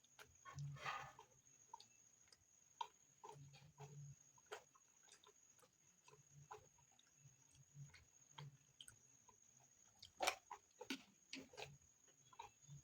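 Close-miked eating sounds: a mouth chewing rice and beans, with soft wet smacks and scattered small clicks, and a few louder clicks about ten seconds in.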